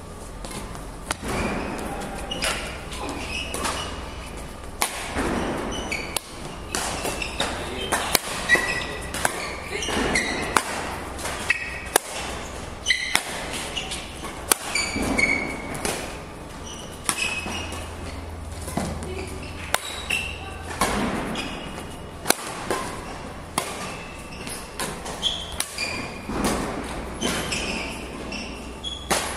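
Badminton rally in a sports hall: sharp racket strikes on the shuttlecock, irregular and often a second or less apart, with short squeaks of shoes on the court floor over a low steady hum.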